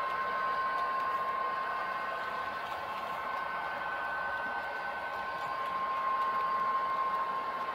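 Model diesel locomotive running on the layout: a steady whirring motor and gear whine with two held tones, growing a little louder near the end.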